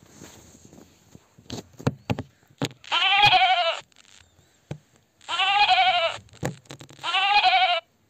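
Sheep bleating three times, each bleat about a second long with a wavering pitch. A few sharp knocks come just before the first bleat.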